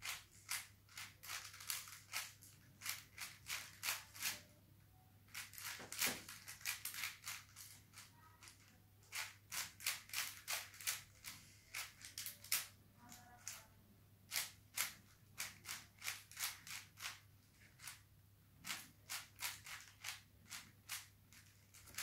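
A plastic 5x5 Rubik's cube being turned by hand as it is solved: its layers click and snap in quick runs of about three or four turns a second, broken by a few short pauses.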